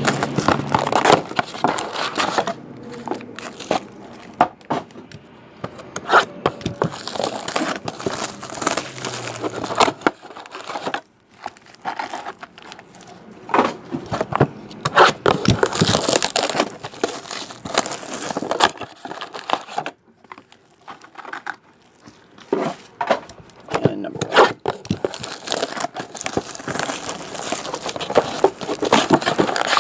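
Clear plastic shrink-wrap on a trading-card box being torn and crumpled, and foil card packs handled: irregular crinkling and tearing with small clicks and knocks, pausing briefly twice.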